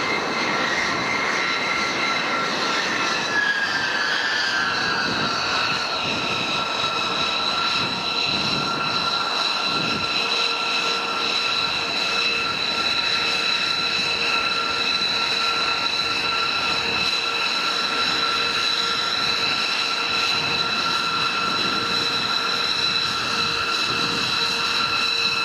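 B-2 stealth bomber's jet engines running with a steady high whine over a rushing roar. A few seconds in, the whine glides down in pitch, then holds steady.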